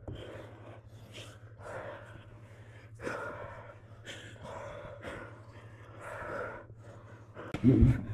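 Grapplers breathing hard and gasping in repeated short, airy breaths while rolling, with a louder burst near the end, over a steady low hum.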